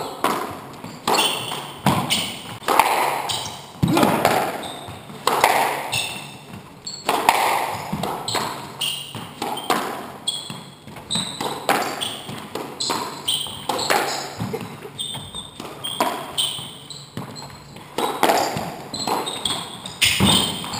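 A squash rally: the rubber ball cracking off the rackets, front and side walls and the wooden floor about once a second, each hit echoing briefly in the walled court. Short high squeaks of shoes on the wooden floor come between the hits.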